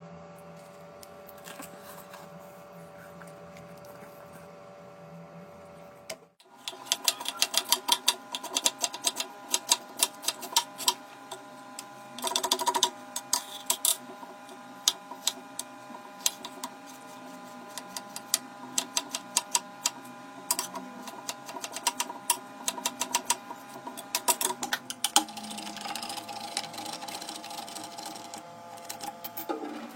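Kitchen food-preparation sounds: rapid, irregular clicks and taps of utensils working food, over a steady hum. The tapping starts after about six seconds, following a quieter stretch of hum alone.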